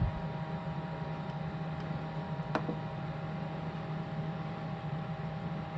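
Steady low electrical hum and hiss of room tone, with a single faint click about two and a half seconds in.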